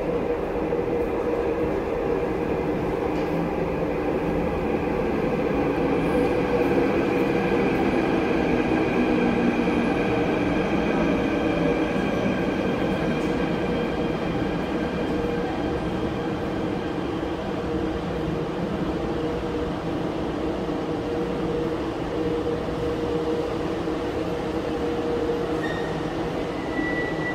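Subway train running through the station: a steady rumble with held whining tones, a little louder about a quarter of the way in.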